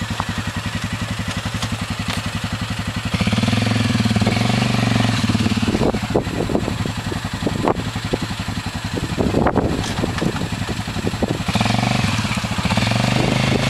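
Suzuki King Quad ATV's single-cylinder engine pulsing at low revs, then revving up about three seconds in as the quad pushes through the mud hole. Scattered sharp knocks come through the middle, and the engine revs up again near the end.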